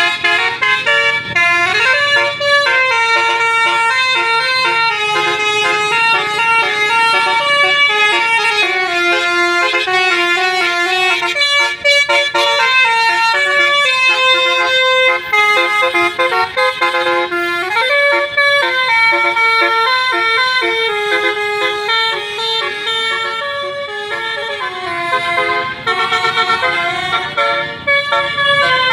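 Basuri telolet horn on a Naryama Trans bus playing a tune: a long, loud run of horn notes stepping up and down in pitch, several tones sounding together.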